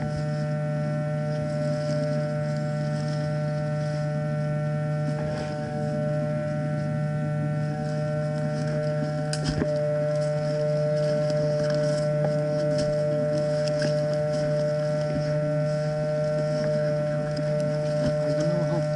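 A steady electrical hum made of several fixed tones runs through the recording. Over it are faint rustling and twig crackles from walking through woodland undergrowth, and a sharp click about nine and a half seconds in.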